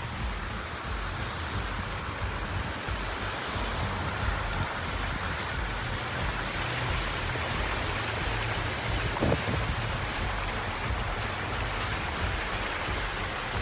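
Cars driving through standing floodwater on a highway: a steady hiss and splash of tyres pushing through the water, with wind rumbling on the microphone.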